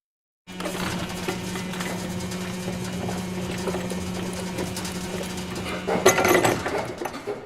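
Warehouse machinery running with a steady low hum, starting after a moment of silence. About six seconds in comes a louder burst of clattering, which then fades.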